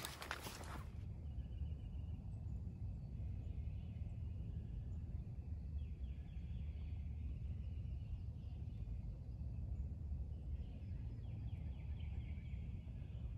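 Faint runs of short, falling turkey-like yelping calls, one about six seconds in and another about eleven to twelve seconds in, over a steady low rumble. Dry leaves crunch underfoot in the first second.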